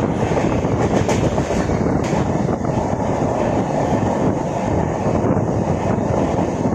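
Express passenger train running at speed, heard from on board: a steady rumble of the wheels on the rails with rushing air.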